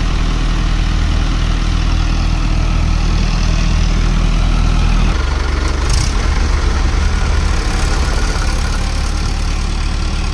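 Diesel tractor engines running steadily at idle at close range; the engine sound changes abruptly about five seconds in and carries on.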